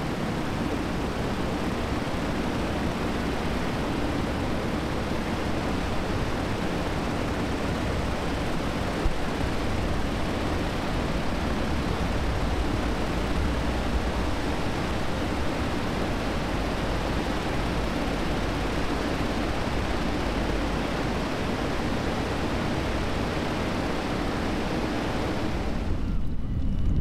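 Steady rushing wind buffeting the microphone of a bicycle on the move, a dense hiss over a heavy, fluttering low rumble. About a second before the end, the hiss drops away suddenly.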